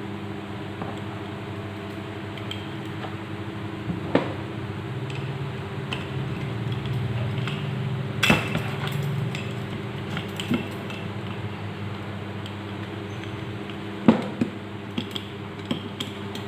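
Needle-nose pliers and small steel distributor parts clinking while a governor spring is hooked into place: a few sharp metallic clicks spaced seconds apart, then a quick run of small ticks near the end, over a steady background hum.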